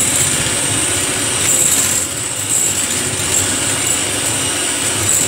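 Electric hand mixer running steadily, its beaters whipping instant coffee, sugar and water into a coffee cream in a glass bowl.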